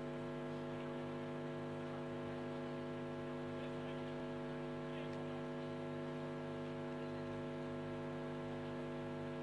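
Steady electrical mains hum: an unchanging buzz made of many evenly spaced overtones, with no crowd or performance sounds to be heard.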